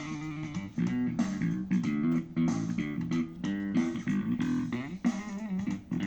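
Guitar music with a bass line, a quick run of plucked notes, played through a Zealot S53 portable Bluetooth speaker.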